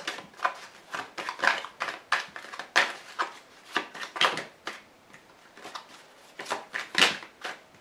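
A deck of oracle cards shuffled by hand: an irregular run of soft card slaps and flicks.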